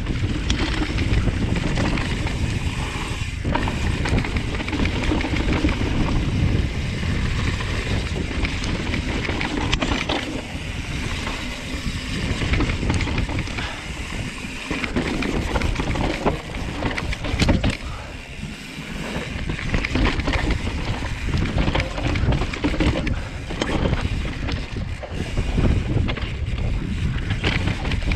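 Mountain bike ridden fast down a rough dirt and rock trail: wind buffeting the action camera's microphone, with the tyres rolling over dirt and stones and the bike rattling and knocking over bumps.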